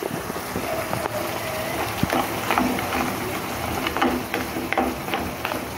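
Prawns frying in a pan of tomato sauce with peas and calamari, a steady sizzle with many small crackles and pops.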